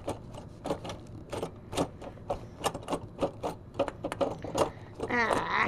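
Irregular clicks and knocks, a few a second, as a payphone's coin mechanism is worked at by hand to get it open. Near the end comes a short wordless vocal sound.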